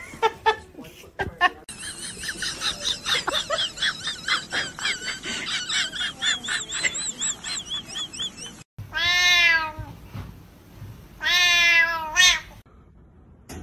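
Rapid, high, wavering chirping for several seconds, then a cat's two long, loud meows.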